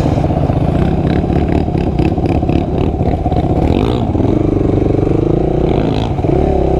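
Motorcycle engine running under way and revving, its pitch dipping and rising about four seconds in, with a rapid clattering during the first few seconds.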